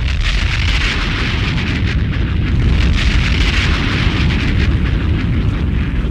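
A loud, steady rushing noise with a deep rumble underneath.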